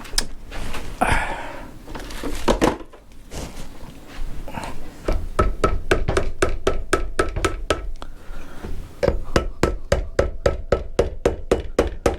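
Repeated hammer or mallet taps on a Benelli engine's crankcase to split the two halves apart, each tap ringing briefly. After a few loose knocks, the tapping starts about five seconds in and quickens to about three or four taps a second near the end.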